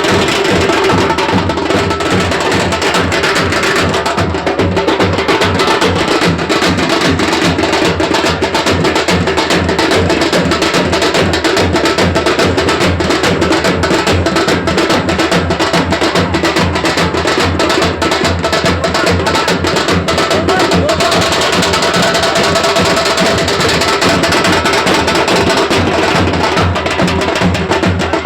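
Loud, fast drum-heavy music with rapid, sharp strikes packed close together, running steadily without a break.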